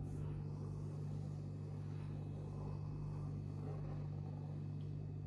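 Steady low hum with no change in pitch or level.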